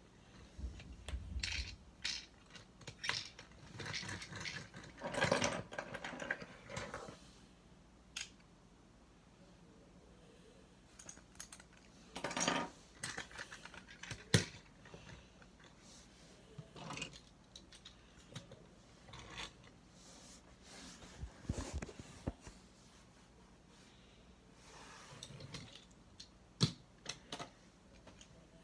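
Plastic parts of a G1 Optimus Prime reissue toy being handled on a wooden table, clicking, tapping and rattling in irregular bursts with short rustles between. The sharpest single click comes about halfway through.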